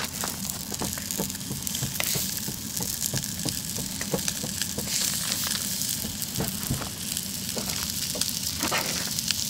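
Ćevapčići and a slab of marbled beef sizzling on the hot griddle plate of an O-grill portable gas grill, a steady hiss with many small spitting crackles as the raw meat is laid down.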